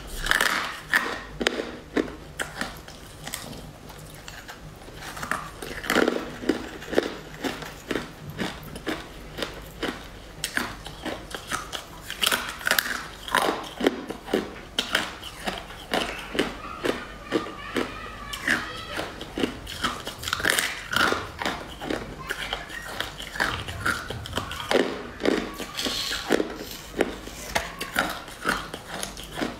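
Close-miked biting and crunching of hard, translucent frosted sticks, a string of short crisp crunches with chewing between, busiest in the second half.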